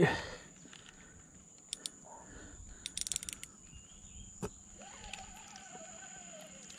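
Insects chirring in a steady high-pitched drone. A few faint clicks sound over it, with a quick run of clicking about three seconds in.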